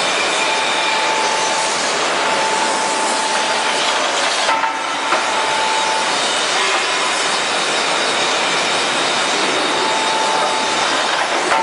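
Hydraulic stone splitting machine running with a steady loud hiss, while its blade is lowered onto and raised off stone blocks. A high steady whine comes and goes, dropping out for a while in the middle, and there are a couple of faint knocks about halfway through.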